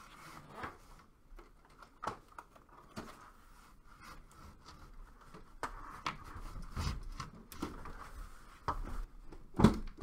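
Handling noise from installing a Mitsubishi mini-split indoor head unit: scattered rustles, scrapes and light knocks as the taped line-set and cable bundle is pushed through a hole in the wall, then a louder thump near the end as the head unit goes onto its wall mounting plate.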